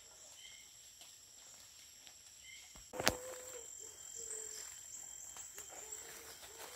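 Tropical forest ambience: a steady high-pitched insect drone, with a bird's short chirp repeating about every two seconds. About three seconds in comes a sharp snap or knock, the loudest sound, among fainter rustles and clicks of walking through leaf litter.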